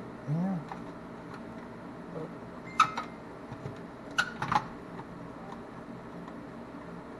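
Sharp clicks and taps of a tool against the plastic and metal parts of an Xbox One S being taken apart: a pair about three seconds in and a quick cluster a second later, over a faint steady hum.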